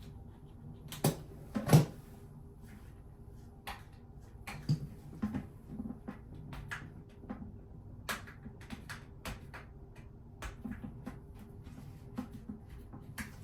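Scattered clicks and knocks of hard plastic as tight snap-on hinge covers on a toilet seat are pried at with a razor blade, with two louder knocks in the first two seconds.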